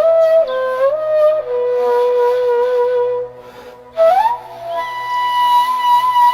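Background music: a solo flute melody of held notes with short slides between them. It breaks off briefly, then rises into one long high note.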